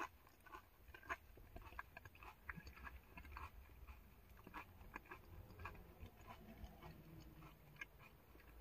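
Faint chewing and small mouth clicks of a person eating close to the microphone, over a low, steady rumble.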